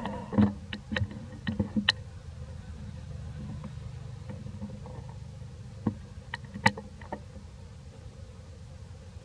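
Scattered sharp clicks and snaps of macaques moving on dry leaf litter and twigs, a cluster in the first two seconds and another around six to seven seconds in, over a low steady rumble.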